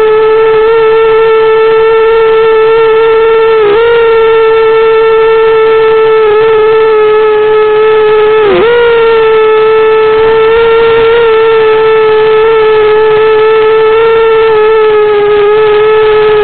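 Eachine 250 racing quadcopter's brushless motors and propellers whining at a steady pitch, dipping briefly twice (about four seconds in and again past eight seconds) as the throttle is eased off and picked up again.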